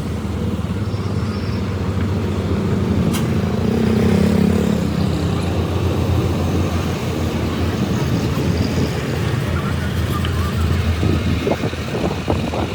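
A large engine running steadily with a low rumble, swelling slightly about four seconds in.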